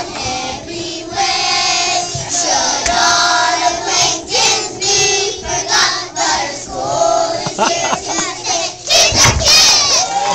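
A group of young children singing a song together, louder near the end.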